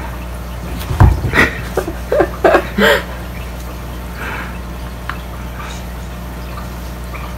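Shiba Inu puppy giving several short, pitched whines, with a low thump about a second in.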